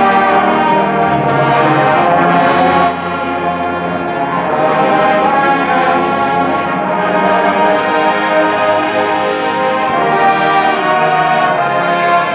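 High school marching band playing, with brass to the fore in held chords; the sound drops back a little about three seconds in and builds to a loud sustained chord near the end.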